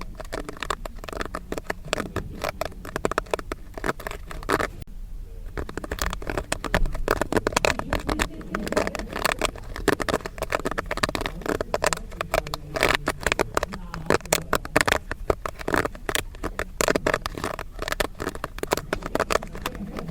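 Popcorn kernels popping in quick, dense succession: a steady run of sharp pops and crackles, with a brief lull about five seconds in.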